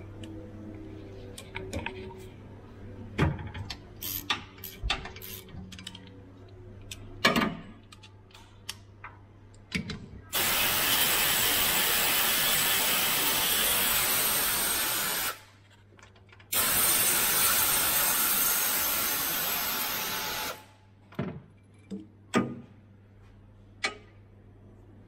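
Pneumatic air ratchet running on a chassis bolt in two runs of about five and four seconds with a short pause between, a steady loud hiss and whirr. Before it, scattered clicks and metal knocks from hand tools.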